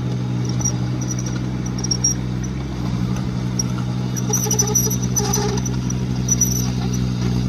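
Kubota U17 mini excavator's three-cylinder diesel engine running at a steady speed, with faint intermittent squeaks and clinks from the machine.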